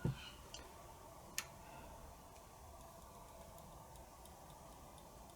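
Quiet room tone broken by a soft knock at the very start and one sharp click about a second and a half in, with a few faint ticks: small parts of a cassette deck's capstan assembly being handled and set down.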